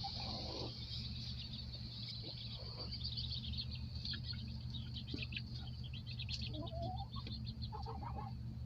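Baby chicks peeping continuously in many short, high chirps, with a few lower chicken calls among them over a steady low hum.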